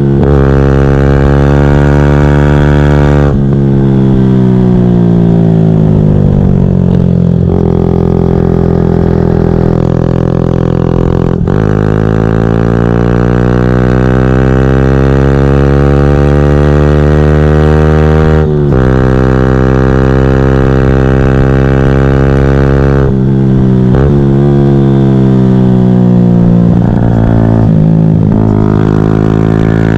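2014 Yamaha YZF-R125's 125 cc single-cylinder four-stroke engine, breathing through a full GPR Furore exhaust system with no catalyst and no baffle, ridden hard. The engine note climbs through the revs and breaks sharply at gear changes. In between it falls away as the bike slows, with a few short breaks near the end.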